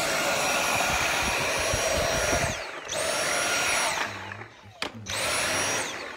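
Cordless stick vacuum switched on and off three times by its trigger. Each time the motor whines up to a high pitch, runs, and winds down as it is released. The first run is the longest, about two and a half seconds; the other two last about a second each.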